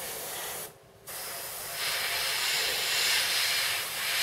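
Airbrush spraying paint: a steady hiss of air and paint that cuts out briefly just before a second in, then comes back and grows louder from about two seconds in.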